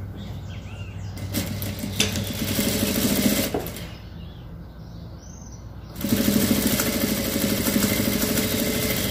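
Jack industrial straight-stitch sewing machine sewing a seam in soft fabric in two runs: a short run of about two seconds beginning about a second and a half in, then a steady run of about three seconds beginning about six seconds in.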